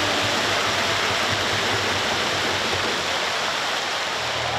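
Large stadium crowd applauding, a steady wash of clapping.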